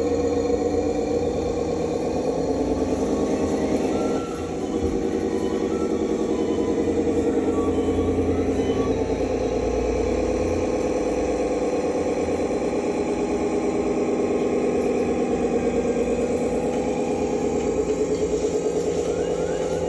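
Radio-controlled construction vehicles running steadily with an engine-like drone, dipping briefly about four seconds in.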